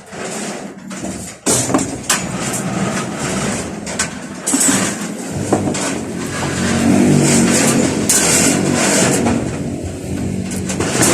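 An engine running, coming in about halfway through, louder for a couple of seconds, then easing off, over scattered sharp clicks and knocks.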